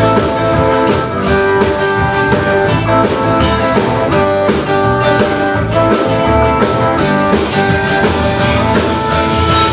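Live band playing an instrumental passage: acoustic guitar and a second guitar over a drum kit, with steady sustained notes and frequent drum and cymbal hits.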